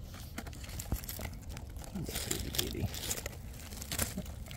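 Crisp crackling and rustling with irregular crunches and tearing, as hands work through dry leaf litter and break a hen of the woods (maitake) mushroom away from where it grows.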